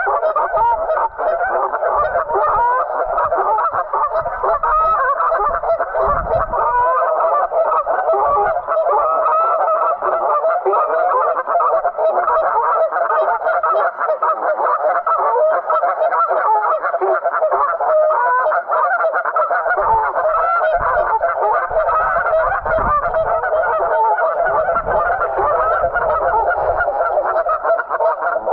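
A flock of geese honking without pause, many calls overlapping at once. Low gusts of wind rumble on the microphone now and then.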